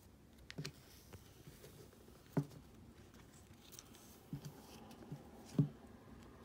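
Small plastic toy pieces handled and tapped together, a green toy scoop digging in a plastic tray of pink toy sand: a few separate soft taps and scrapes, the loudest about two and a half seconds in and again near the end.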